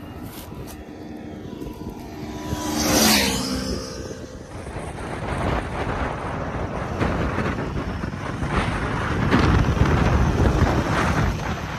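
Triumph motorcycle engine running, revved sharply about three seconds in, then the rushing sound of riding along at speed: wind noise on the microphone over engine and road noise.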